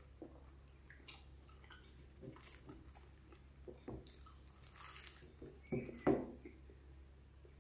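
Biting into a puff-pastry frikandelbroodje: the flaky pastry crunches and crackles in a run of small bites about four to five seconds in, amid quieter chewing clicks. Two louder dull knocks come about six seconds in.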